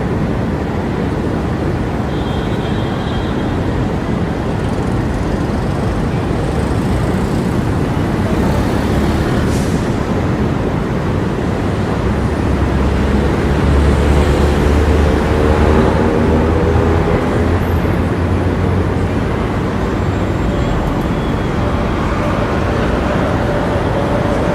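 Steady city street traffic: a continuous wash of passing cars and engines. Around the middle a heavy vehicle's low engine rumble swells and then eases off, and an engine's pitch climbs as it pulls away.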